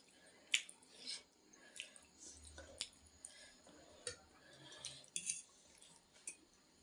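Eating sounds: chewing instant ramen noodles, with scattered short clicks and wet mouth sounds.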